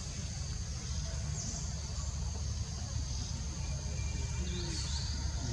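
Steady high insect chorus of crickets or cicadas, with a couple of brief high chirps, over a steady low rumble.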